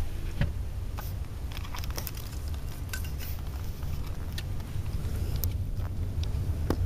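A car ride heard from inside the cabin: a steady low road and engine rumble with scattered light clicks and rattles.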